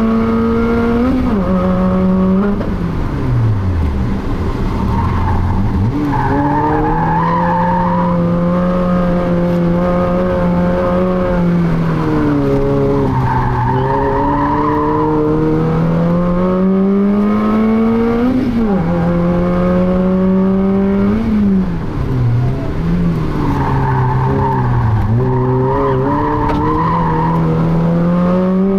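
Small hatchback's engine heard from inside the cabin while driven hard, revs climbing and dropping sharply with the gear changes. The tyres squeal three times as the car corners near the limit of grip.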